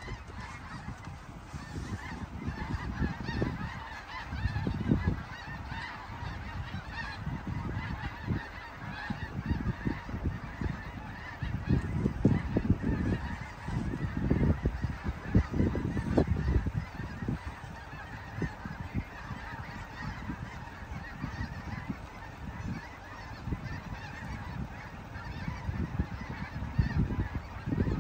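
A large flock of geese calling continuously overhead, a dense chorus of many overlapping honks. Irregular low rumbling gusts of wind on the microphone come and go, loudest around the middle.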